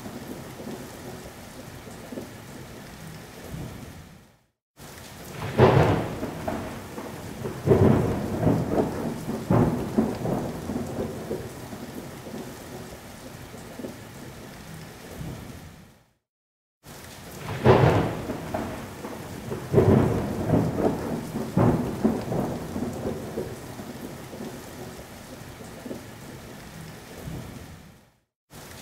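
Thunderstorm: rain falling steadily with loud rolls of thunder, the strongest about 5 and 17 seconds in. The same stretch of storm sound repeats about every 12 seconds, cutting out briefly to silence between repeats.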